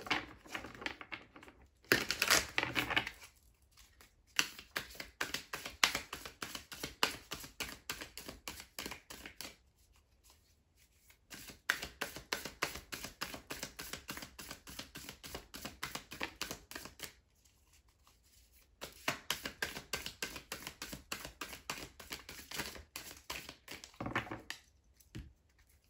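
A Star Trek: The Next Generation tarot deck being shuffled by hand: fast runs of crisp card clicks and slaps, stopping twice for a second or two.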